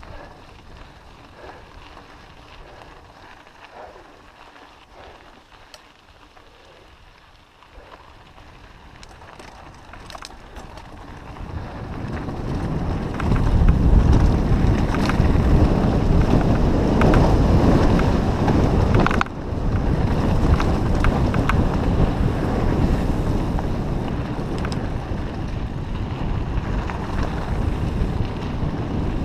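Wind buffeting a GoPro's microphone as the mountain bike picks up speed on a dirt trail: light clicks and rattles at first, then from about twelve seconds in a loud, steady, low rush that holds to the end, broken by a brief dip a few seconds later.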